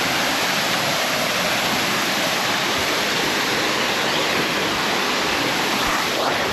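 Small waterfall pouring and splashing close by: a steady, even rush of falling water.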